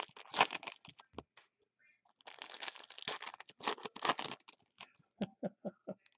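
Foil trading-card pack wrappers crinkling and tearing as packs are torn open and handled, in two spells with a short pause between them.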